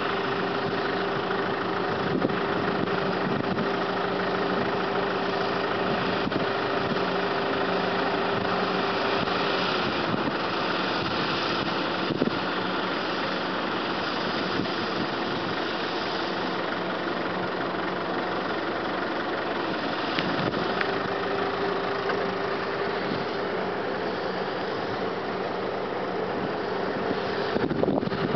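Head-feed combine harvester running steadily, engine and machinery together, with a steady hum that drops in pitch about a third of the way through and rises back about two-thirds through.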